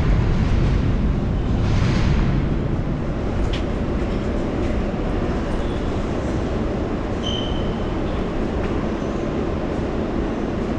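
Steady low rumble of New York City subway trains on an underground station platform, a little louder in the first two seconds, with a brief high squeal about seven seconds in.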